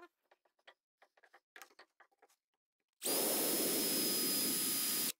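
Cordless drill driver running a three-flute countersink bit into beech with no pilot hole: a steady motor whine with cutting noise starts about three seconds in, holds for about two seconds and cuts off suddenly. Before it there are a few light clicks as the bit is set in place.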